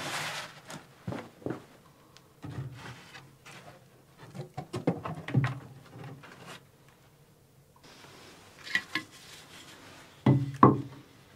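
Irregular knocks, clicks and clatter of hand tools and metal pipe fittings being handled at a plumbing pipe rough-in, with two louder knocks near the end.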